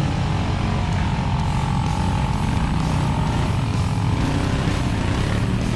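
CFMOTO ATV engines running as the quads drive through thick mud, one passing close by.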